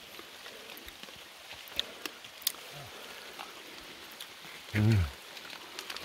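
Light rain on leaves: a soft steady hiss with occasional sharp drip ticks. About five seconds in, a person gives a short hummed 'mm'.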